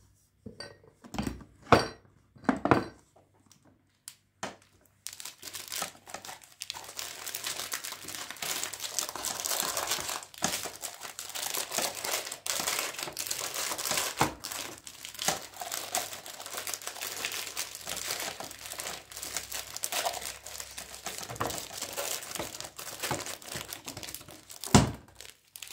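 A few sharp knocks, then a foil packet being handled and crinkled for about twenty seconds. Near the end there is a single loud knock as the plastic lid of an organiser box shuts.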